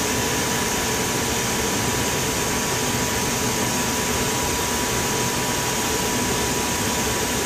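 Steady whooshing fan and air-handling noise in a powered-up jet cockpit, with a thin, steady mid-pitched tone running under it.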